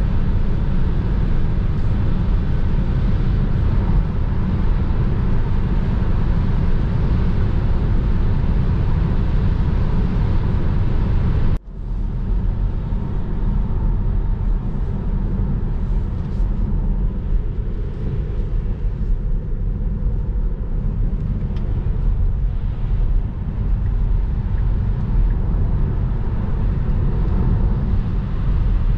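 Steady road and wind noise inside a Tesla Model 3 Long Range cabin at autobahn speed: a deep rumble from the tyres with a hiss of wind above it. It breaks off abruptly about a third of the way in and resumes a little quieter and duller.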